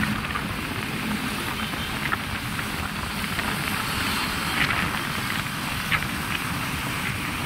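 Steady rush of wind and road noise from a motorcycle riding at around 50 km/h, with a few faint ticks.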